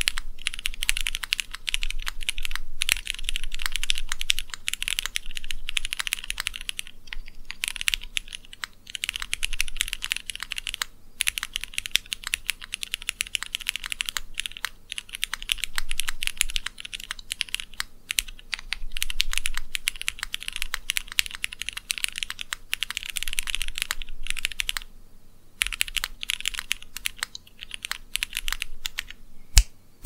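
Typing on a Keychron Q3 aluminium-plate, gasket-mount keyboard with lubed Cherry MX Black Hyperglide linear switches and Drop DCX Modern Dolch keycaps: runs of quick keystrokes broken by a few short pauses, with one sharper, louder key strike just before the end.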